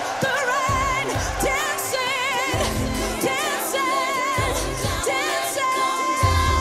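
Female pop singer's live vocal with wide vibrato and long held notes, over a pop backing with pulsing bass. The bass grows heavier near the end.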